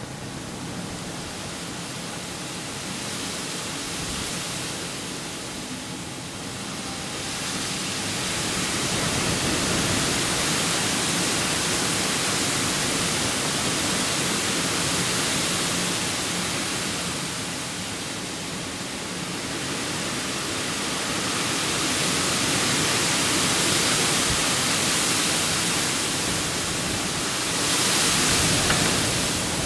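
Strong wind blowing in gusts, a steady rushing noise that swells and eases every several seconds and is loudest near the end.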